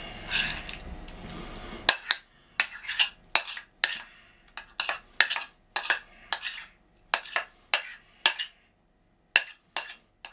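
A ceramic plate scraped repeatedly as cottage cheese is pushed off it onto dough: a run of short scrapes and clinks, about two a second, starting about two seconds in, with a brief pause and a few more near the end.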